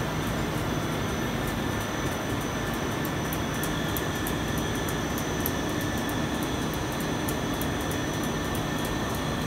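Bruckner gas-heated stenter frame running: a steady mechanical drone of its fans and drives with several held tones, and a faint, quick, irregular ticking over the top.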